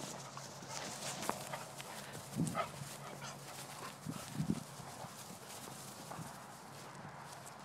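Quiet footsteps and rustling on dry grass as beagles run about, with scattered light clicks and a couple of soft thuds, the loudest about two and a half and four and a half seconds in.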